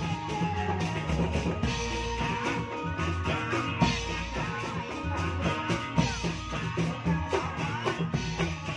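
Traditional Indramayu reog music: drums beating in a steady rhythm with a held melody line above them.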